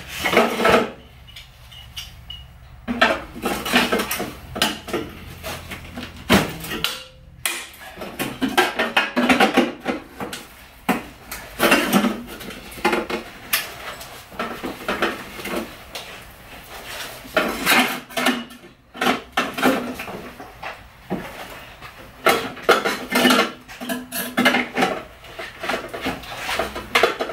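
Irregular metallic clanking and rattling, with some sharp knocks, as the cut-open sheet-steel rear exhaust silencer is handled.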